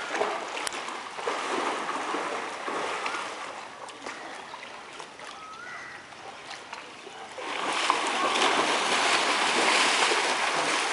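Brown bears splashing and churning the water of a pool as they play, a steady rushing and sloshing that grows clearly louder about seven and a half seconds in.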